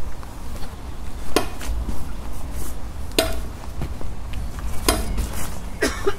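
Sharp metallic clinks, about five strikes spaced one to two seconds apart with the last two close together near the end, each with a short ring, over a low steady hum.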